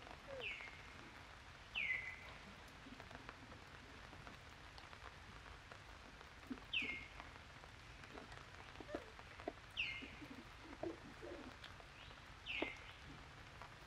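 A bird calling: short, high calls that slide downward in pitch, five of them a few seconds apart, with a few fainter, lower chirps between them over a soft steady hiss.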